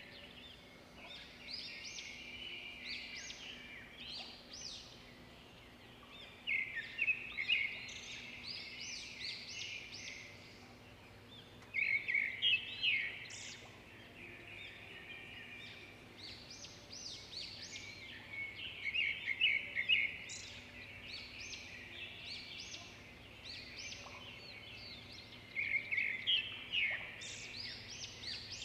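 Songbirds singing in woodland: one bird repeats a loud, short song phrase about every six or seven seconds, with quieter chirps from other birds in between, over a faint steady low hum.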